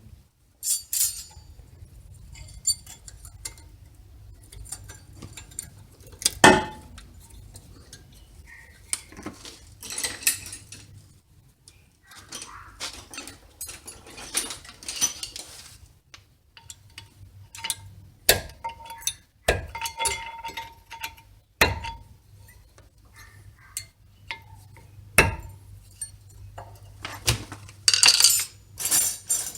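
Metal brake pad clips being handled and fitted into the front caliper bracket: scattered sharp metallic clicks and clinks, with stretches of scraping and a short ring of metal about two-thirds of the way through.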